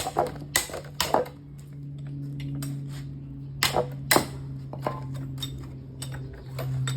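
Sharp metal clinks and knocks of hand tools working on a vehicle differential: several in the first second or so and two more around four seconds in, over a steady low hum.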